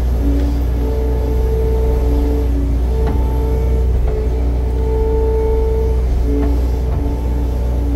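Heavy machine's diesel engine running steadily, a constant low drone, with held higher tones that come and go above it.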